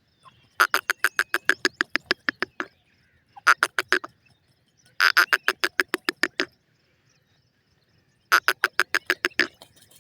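A bird calling in rapid chattering bouts of about eight notes a second, four bouts in all with short pauses between them.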